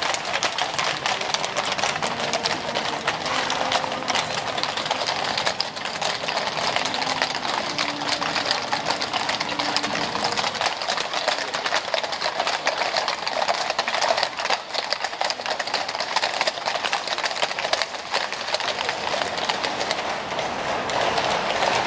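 Hooves of a column of horses walking over brick paving: a steady, dense clatter of overlapping hoofbeats.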